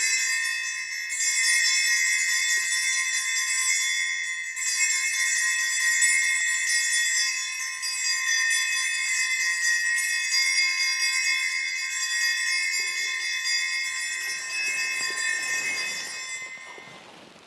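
Altar bells rung during the elevation of the consecrated host, marking the consecration: a sustained bright jingling ring with two brief breaks, about a second in and about four and a half seconds in, fading out near the end.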